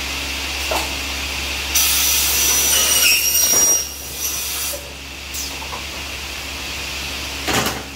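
Air-clamped aluminium-cutting circular saw running with a steady whine. About two seconds in, the blade is pulled down through an aluminium extrusion: a loud, high-pitched ringing screech lasting about two seconds. A short sharp burst follows near the end.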